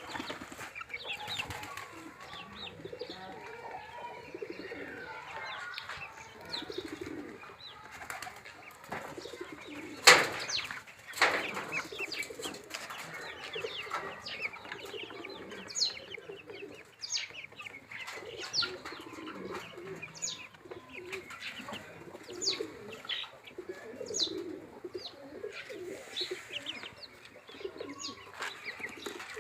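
A flock of chickens clucking and murmuring, with short high peeps in the second half. Two sharp knocks about a second apart a third of the way in.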